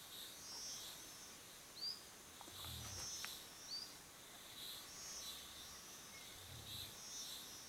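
Faint natural ambience: high-pitched insect chirping in short pulses repeating every half-second or so. Two brief rising bird chirps stand out, the first about two seconds in, and there are a couple of soft low thumps.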